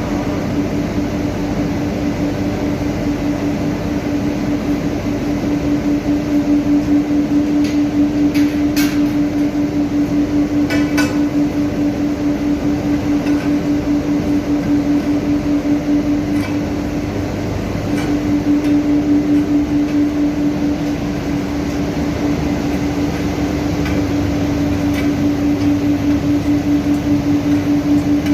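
Induction furnace melt shop running: a loud, steady electrical hum with a pulsing beat. A few short metallic clanks come about a third of the way in.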